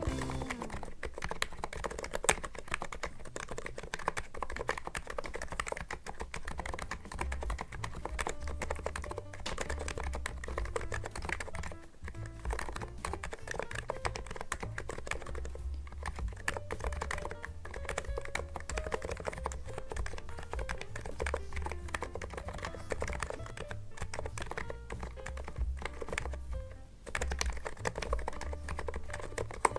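Fast, continuous typing on a NIZ Plum87 electro-capacitive keyboard with PBT keycaps and a steel plate, giving a soft, rapid clacking over background music.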